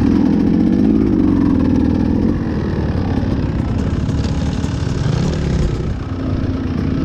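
Dirt bike engine running under the rider, the revs rising and falling in short blips, dropping to a lower note about five seconds in.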